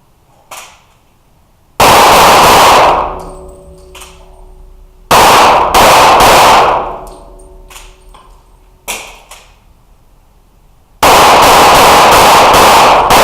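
Pistol shots fired rapidly in three separate strings in an indoor range, each string a fast run of cracks with an echoing tail. The strings come about 3 s and then 6 s apart, with a faint knock before the first and before the last.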